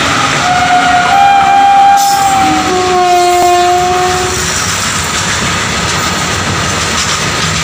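A train horn sounds for about four seconds and then stops, a lower second note joining it partway through. Under it, the steady rumble and clatter of freight wagons rolling past on the rails.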